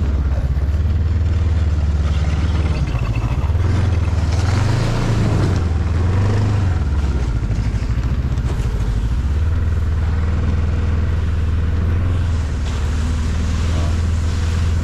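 A motor engine running steadily at a low, even pitch, which rises and falls a few times between about three and seven seconds in before settling again.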